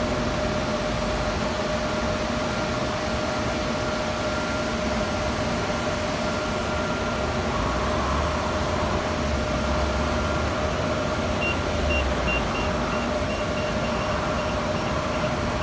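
Steady machine hum with a held tone. Near the end a run of short, evenly spaced electronic beeps, about three a second, comes from a car wash pay station while it processes a card payment.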